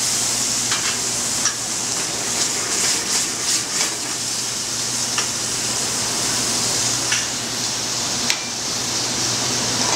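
Pan sauce of capers, shallot, garlic, white wine and lemon juice sizzling steadily in a sauté pan, with a few light clicks of a utensil against the pan and a steady low hum underneath.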